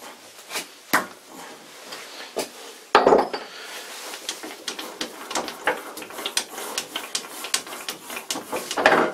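Metal clicking and clinking as a lathe chuck is worked loose and unscrewed by hand from the threaded spindle nose, with a sharp knock about three seconds in and a louder clunk near the end.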